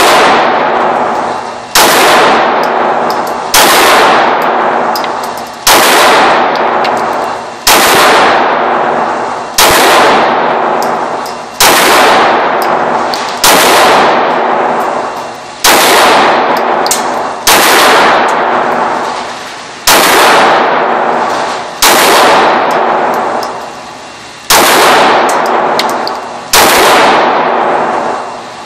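Glock 19 Gen 3 9mm pistol firing slow, evenly paced single shots, about one every two seconds. Each loud report rings out in a long echo down an indoor shooting range.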